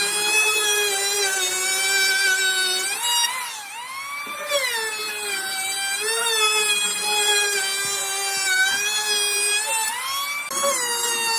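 Electric power tool's motor running with a steady high whine. The pitch sags and recovers about three to four seconds in and again near the end, as the tool takes load in the wood.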